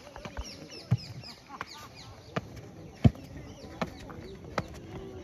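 Repeated thuds of an athlete's feet landing on a dirt track during two-footed hurdle hops, about one every three-quarters of a second. Birds chirp in the first couple of seconds.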